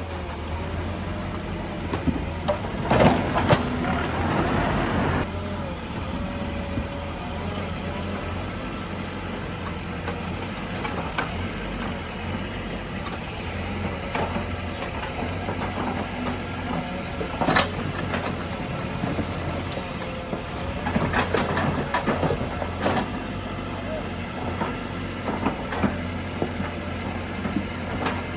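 JCB 3DX backhoe loader's diesel engine running steadily under loading work, with louder bursts of clatter about three seconds in, midway and again a little later.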